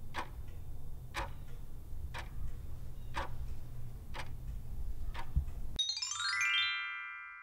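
Background music of a clock-like tick about once a second over a low hum. About six seconds in it cuts off, and a falling chime sweep rings out and fades away.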